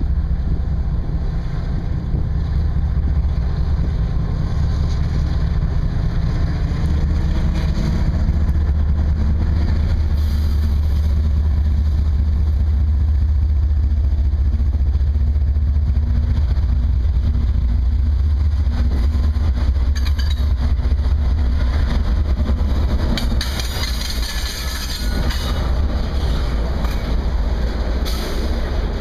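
CSX freight diesel locomotives passing close by: a loud, steady, deep engine rumble with a low hum. Near the end the engine sound eases and the clicking and rattling of the first intermodal container cars rolling past comes in.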